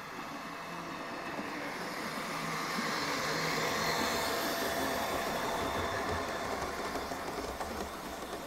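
A 16mm-scale garden railway train running past on the track, a steady rushing noise that swells to a peak midway and fades as it goes by.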